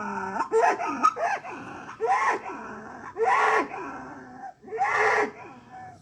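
Bull bellowing in a run of short, repeated calls, about one a second, each rising then falling in pitch.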